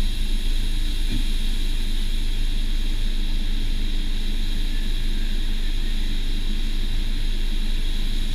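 Steady mechanical drone of car-wash machinery, a constant low hum with a hiss above it that does not change.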